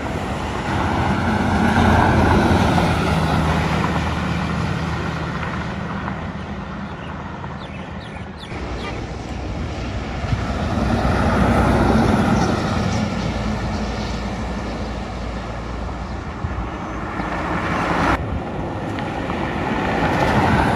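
Diesel buses passing one after another on a highway, three in all: engine drone and tyre noise swell as each one approaches and pass by, then fade. Wind buffets the microphone.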